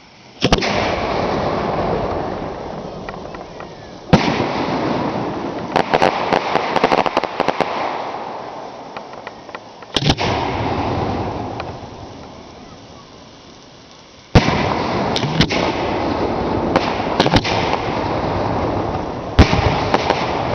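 Hand-fired aerial firework shells going off one after another. Loud bangs come about a second in and again at about 4, 10, 14 and 19 seconds, each followed by a long noisy tail that fades over several seconds. A run of rapid crackles follows the second bang, and after the fourth the noise stays up with repeated pops.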